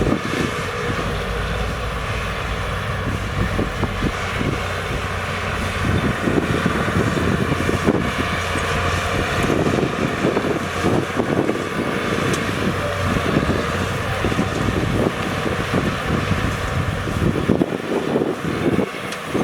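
Diesel engines of heavy earthmoving machinery running, with an uneven clattering that grows rougher from about six seconds in.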